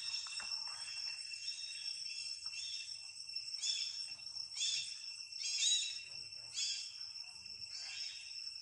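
Steady high-pitched insect drone, with a run of short, high rising-and-falling calls about once a second, the loudest a little past the middle.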